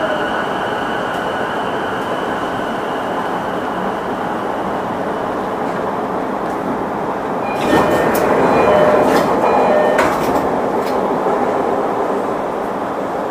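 Sotetsu 11000 series electric train with Mitsubishi IGBT-VVVF inverter drive, heard from inside as it slows to a stop, the inverter whine fading. About eight seconds in, a louder rush of air with clicks, typical of the doors opening at the station stop.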